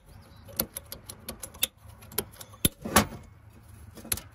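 Sharp metal clicks as a newly fitted spring-loaded lock pin in a PTO shaft yoke is pressed in and snaps back, several times at uneven intervals, loudest near the end. The pin still moves a little bit stiffly.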